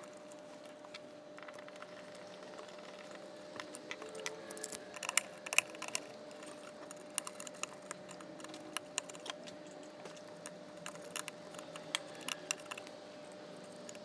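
Light, irregular clicks and small metallic rattles of crimped wire connectors being fitted and screwed down on a VFD's motor terminals, over a faint steady hum.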